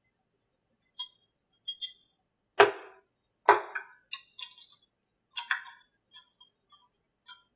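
Screwdriver and screws clicking and clinking against the metal of a small Evolution 15GX2 gasoline model-airplane engine as its muffler is screwed on: scattered light metallic ticks and clinks, with two louder knocks about two and a half and three and a half seconds in.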